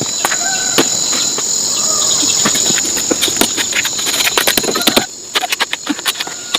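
A steady, high-pitched insect chorus drones throughout. Over it come many short, sharp clicks and crackles, growing denser after about three seconds.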